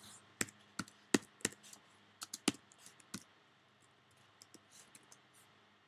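Typing on a computer keyboard: a quick run of separate key clicks in the first three seconds, then a few fainter scattered clicks.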